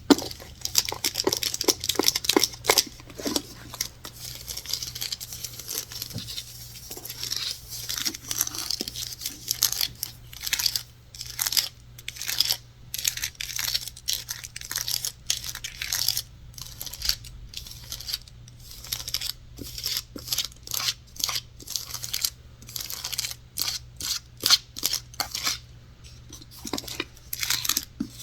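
Quick, irregular tapping and scratching on hard surfaces, a dense run of sharp clicks and scratchy rustles with no pauses longer than a moment.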